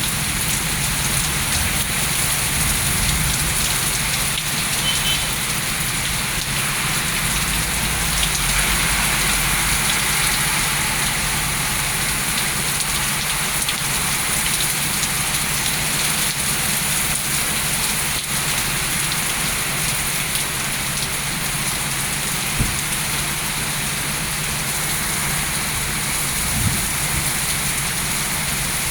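Heavy rain falling steadily, a dense even hiss of rain hitting the ground.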